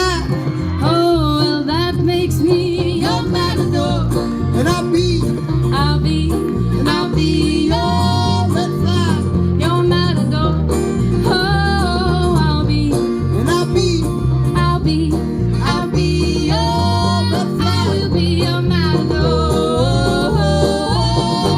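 Live country band playing with guitar, a steady bass line and a bending lead melody.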